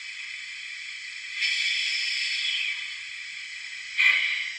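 Hissing from a DCC sound-fitted OO gauge model locomotive's small onboard speaker: a steady thin hiss that swells for about a second from a second and a half in, then a sharp louder hiss near the end.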